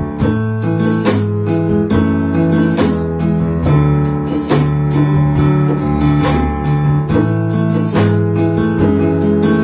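Live instrumental praise-band music: held keyboard chords over a drum kit and hand drums keeping a steady beat.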